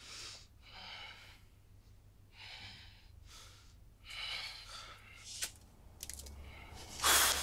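A man breathing heavily, about five audible breaths in and out, then a few faint clicks and a short, loud rush of breath near the end.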